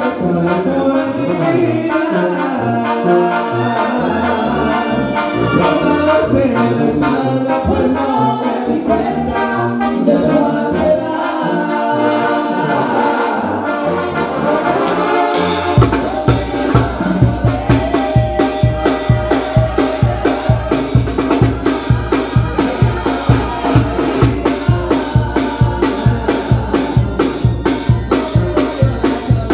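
Live banda music: a brass section of trumpets and trombones playing a melody. About halfway through, the percussion comes in, the tarola snare and bass drum hitting a steady beat under the horns.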